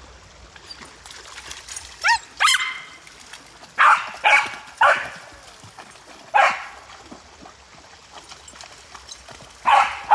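Australian cattle dog barking: two short rising yelps about two seconds in, then single sharp barks spaced a second or so apart, and a quick run of barks near the end.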